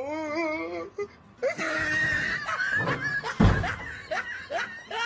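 A wavering, drawn-out cry, then a clatter and one heavy thump about three and a half seconds in as a cat leaps off the top of a wardrobe and the wardrobe door swings open, followed by a run of short rising cries.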